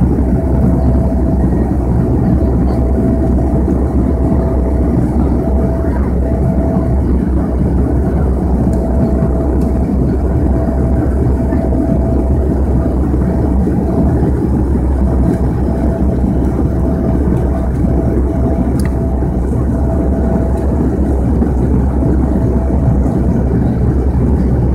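Steady cabin drone of a Bombardier Dash 8-100 in flight, its twin turboprop engines and propellers heard from inside the cabin: a deep, even rumble with a steady hum tone running through it.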